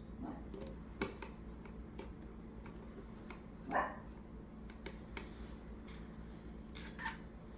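Faint scattered clicks and light taps as a small screw is driven by hand with a screwdriver to fix an arm to a frame plate, with one short, louder sound a little before four seconds in.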